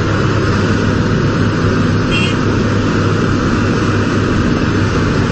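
Heavy equipment's diesel engine running steadily, with a short high chirp about two seconds in.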